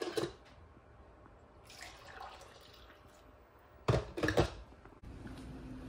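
Glass carafe clunking as it is pulled from a drip coffee maker, then coffee pouring into a ceramic mug, rising in pitch as the mug fills, and two loud knocks of the carafe and mug about four seconds in.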